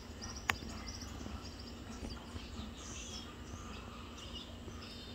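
Quiet outdoor ambience: faint high chirping over a low steady rumble, with one sharp click about half a second in.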